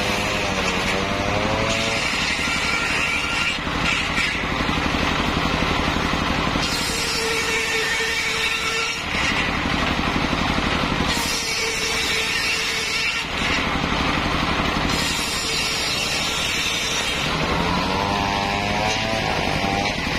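Circular sawmill blade, belt-driven by a stationary diesel engine, ripping mahogany into beams. The engine drones steadily throughout, while the blade's cutting noise rises and falls over several passes, with a wavering whine near the start and again near the end.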